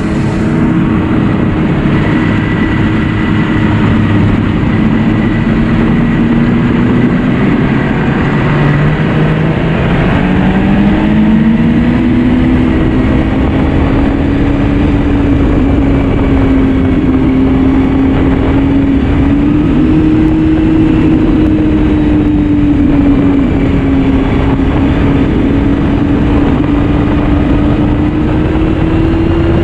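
2009 Yamaha Vector snowmobile's four-stroke three-cylinder engine running along at trail speed. Its note drops for a moment about eight seconds in, then climbs back up and holds steady.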